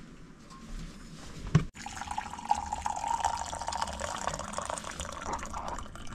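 Hot water poured from an insulated vacuum flask into a ceramic mug, a steady splashing fill. It is preceded about a second and a half in by a single sharp knock.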